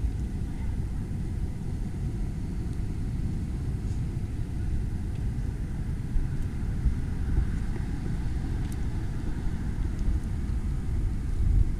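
Steady low rumble with no speech.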